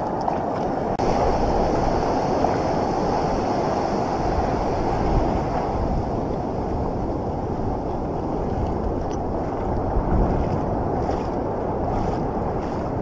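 Steady rush of ocean surf washing through shallow water at the shoreline.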